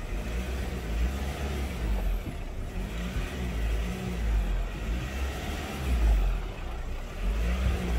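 Pickup truck engine running at low revs as the truck creeps forward slowly, a low rumble that swells and dips.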